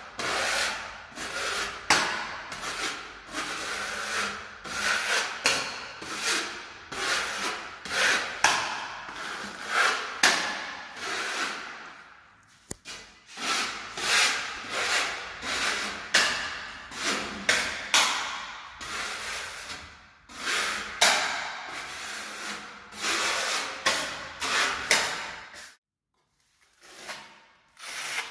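Hand spatula and trowel spreading and scraping thick decorative paint across a wall in a run of quick strokes, several close together. It stops briefly near the end.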